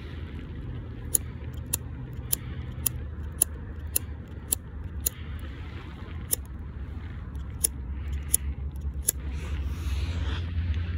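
A handheld lighter struck again and again: about a dozen sharp clicks, roughly two a second, stopping about nine seconds in. A steady low rumble runs underneath.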